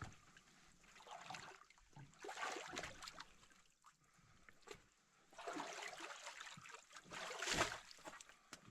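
Canoe paddle strokes pulling through lake water, with swishing and dripping, about three strokes a couple of seconds apart. The last stroke is the loudest and ends in a short low knock.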